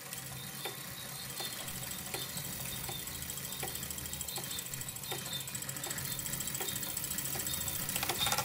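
Electromechanical noise from relays and small motors: a regular click about every three-quarters of a second over a low steady hum and a fine, fast high ticking, slowly growing louder, with a louder texture coming in near the end.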